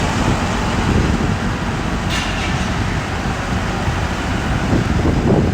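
Diesel engine and hydraulics of a solar pile driver running steadily, with a brief hiss about two seconds in.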